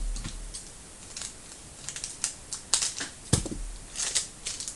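Trading cards being handled on a table: scattered light clicks and rustles as cards are slid and flicked through, with one sharper knock about three seconds in.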